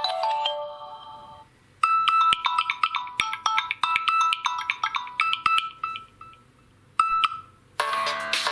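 Samsung Galaxy M01 stock ringtones played one after another. A mallet-like tune fades out, then after a short gap a quick melody of bell-like notes plays and fades. Near the end a fuller electronic ringtone with a bass line starts.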